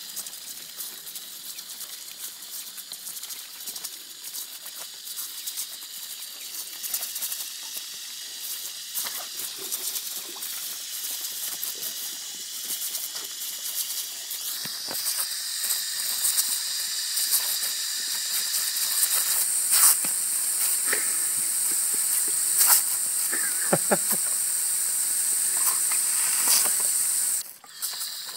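Garden hose spray nozzle hissing as its water jet sprays over ducks and into a plastic tray, with spattering of the water. The hiss grows louder about halfway through and cuts out briefly near the end.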